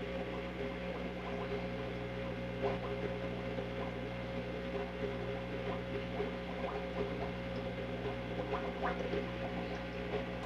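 A steady low electrical hum, with faint small clicks and crackles scattered throughout.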